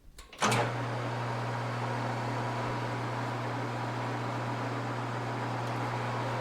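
An electric shop machine switched on with a click about half a second in, its motor then running with a steady hum, ready to cut off a machined steel sleeve.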